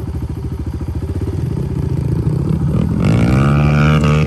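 Dirt bike engine running at a low, pulsing idle, then revving up about three seconds in, rising sharply in pitch and holding at high revs.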